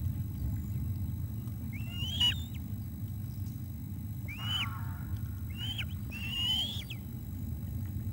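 Ospreys calling at the nest: four short, high, whistled calls that sweep upward, one about two seconds in and three more close together later, the last one longer. A steady low rumble runs underneath.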